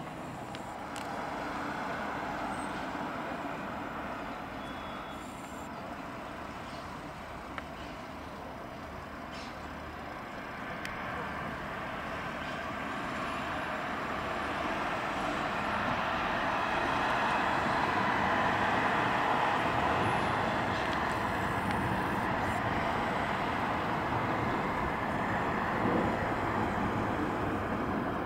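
Jet engine noise of airliners on approach overhead: a steady rush that swells from about halfway through as a Boeing 777 freighter, with its two GE90 turbofans, passes over.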